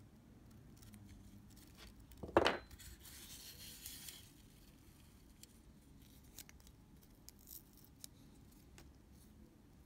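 Small handling noises at a workbench: a knock about two and a half seconds in, then about a second of rustling, followed by scattered light clicks.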